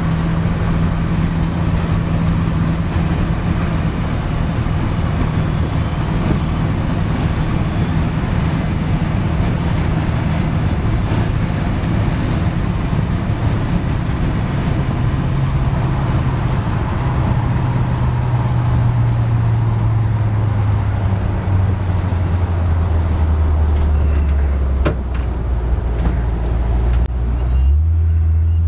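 Car engine and tyre noise heard from inside the moving car at freeway speed, a steady low drone. Over the second half the engine note falls gradually in pitch as the car slows onto a curving road.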